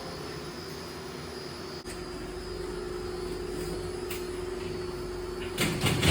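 Steady machinery hum. About two seconds in a click is heard, and after it a steady tone joins the hum. A brief, louder noise comes near the end.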